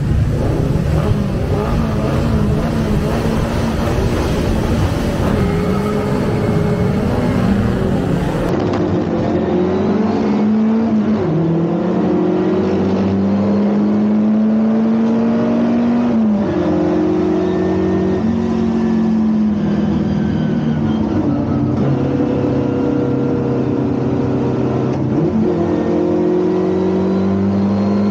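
Race car engine running hard, loud throughout. About eight seconds in it settles into one clear engine note that climbs in pitch and drops back several times as the car changes gear.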